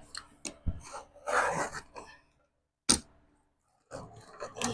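Drywall being handled and fitted: a short scraping sound about a second in, and several sharp knocks and taps around it.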